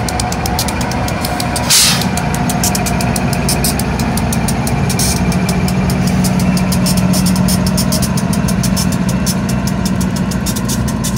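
Two rear GE diesel locomotives of a double-stack container train, a Dash 9-44CW and an ES44DC working as distributed power, pass close by. Their engines make a steady drone that grows louder from about halfway through, over a rapid clatter of wheels on the rails. A single sudden loud burst of noise comes about two seconds in.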